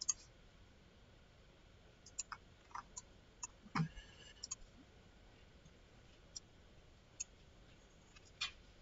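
Computer mouse clicking now and then, about a dozen short, separate clicks over faint room noise, the loudest a little before halfway.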